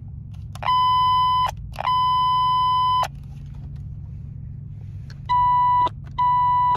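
Four electronic beeps, all on the same steady high tone: two long ones in the first three seconds, then two short ones near the end, over a steady low hum.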